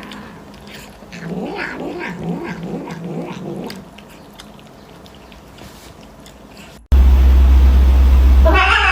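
A cat vocalizing in a quick run of short, arching calls for a few seconds. After a cut, a loud low hum starts, and a drawn-out, wavering call sounds near the end.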